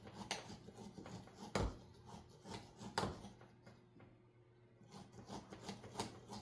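Soldering iron tip being cleaned: faint scratchy rubbing and light clicks, with two sharper knocks about a second and a half and three seconds in.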